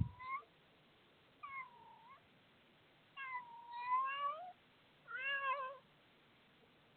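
Domestic cat giving four strange, wavering meows, the third the longest. It is an unusual call that she only began making in the last week.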